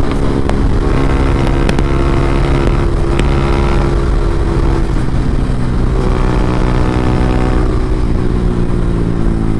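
Yamaha R15M's single-cylinder engine running through an SC Project full-system exhaust at highway speed, a steady note as the bike eases off from about 129 to 105 km/h.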